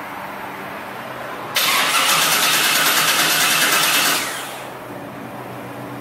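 1970 Chevrolet Chevelle's engine on a cold start: a steady lower running sound at first, then a sudden loud, harsh burst about one and a half seconds in that lasts nearly three seconds before easing back to a steady idle.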